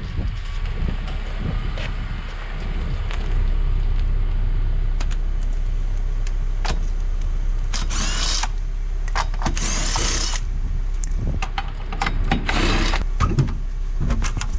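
Metal clinks, knocks and scraping of a lug wrench and lug nuts as a car wheel is loosened and pulled off its hub, with several longer scraping stretches, over a steady low rumble.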